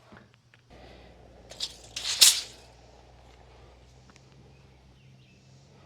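A wooden board being handled and positioned: a few light knocks and one short scrape about two seconds in, the loudest sound, over faint outdoor background.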